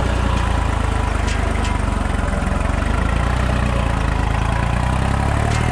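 New Holland 3630 tractor's diesel engine running steadily under load while working a super seeder through wet mud.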